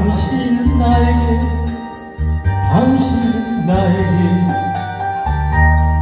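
A man singing a Korean trot song into a microphone over a backing track with keyboard and steady bass, in two phrases, the second beginning about two and a half seconds in.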